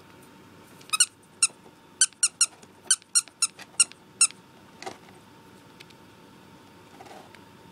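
A quick run of about ten short, high-pitched squeaks over three seconds or so, with one fainter squeak after, as a pet rat grabs and tugs at a plush lion toy.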